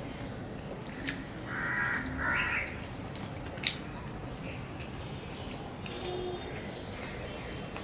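A crow cawing twice in quick succession a second and a half in, with a few sharp mouth clicks from hand-eating rice and curry.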